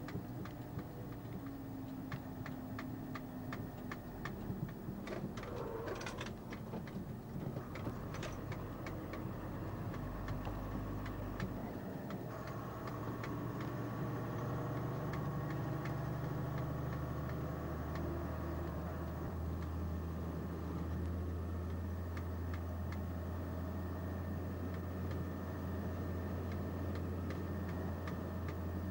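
Diesel engine of a milk tanker lorry running steadily under way, heard from inside the cab. Light sharp ticks come about twice a second through the first ten seconds or so, then only now and then, and the engine's low hum grows stronger about twelve seconds in and holds.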